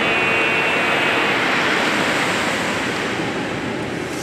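Ocean surf washing on the beach: a steady rushing of waves.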